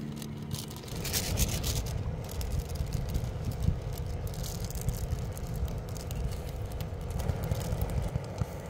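Strong wind buffeting the microphone in uneven gusts, with scattered rattling and scraping clicks.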